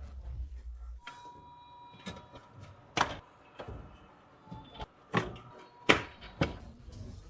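Sharp knocks from hands-on work on an e-rickshaw wheel during a tyre change: one about three seconds in, then three more close together in the second half.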